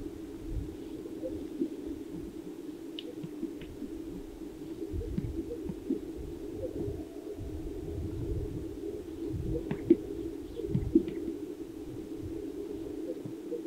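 Greater sage-grouse lek: the coos and air-sac pops of many displaying males, heard from a distance, blend into a steady low chorus, with wind rumbling on the microphone.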